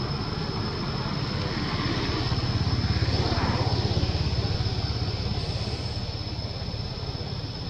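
A motor engine running with a low pulsing rumble that grows louder a couple of seconds in and then eases off, as if passing by. A steady high-pitched whine sits above it.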